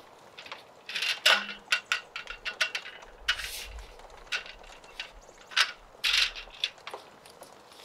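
A wood fire in a small fire pit crackling with sharp, irregular pops, while a folding camp table is lifted and set down with clatter and footsteps crunch on gravel.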